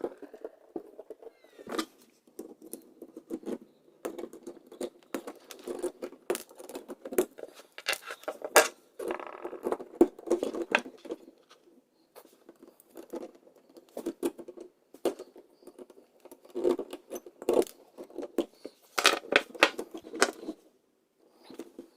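Close handling noises of work at a wall outlet: irregular small clicks, taps and scrapes of hand tools and outlet parts being handled, with short pauses between bursts.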